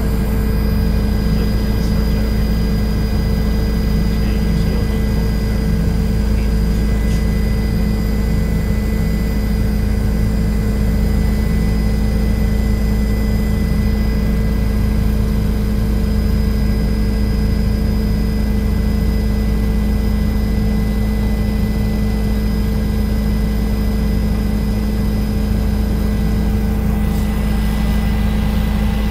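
Helicopter flying, heard from inside the cabin: a loud, steady low rotor and engine drone with a constant high whine over it.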